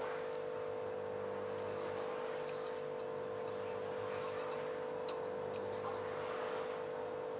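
Steady hum on one pitch, with a few faint, light ticks over it.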